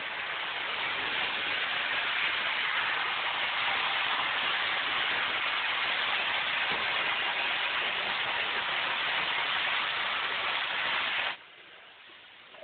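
Hair dryer blowing with a steady rushing noise that cuts off suddenly near the end.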